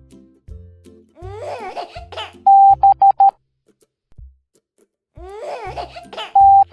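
Morse code beeps: a steady pure tone keyed long-short-short-short, the letter B, then long-short-long at the start of the next letter, C. Each letter is preceded by a short childlike cartoon giggle, over soft backing music.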